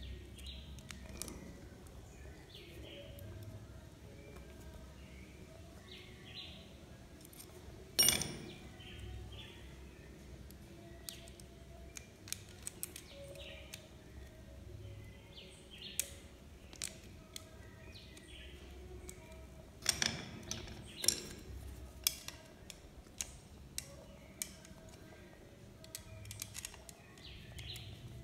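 Scattered clicks and knocks from hands handling a socket outlet and its wires, fitting them to the terminals; the loudest knock comes about eight seconds in.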